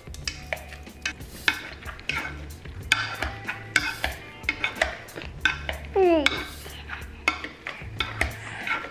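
Wire potato masher pressed again and again into boiled potatoes softened with butter, milk and olive oil in a metal pot: wet squishing with clinks of the masher against the pot, about one or two strokes a second. A short falling squeal about six seconds in.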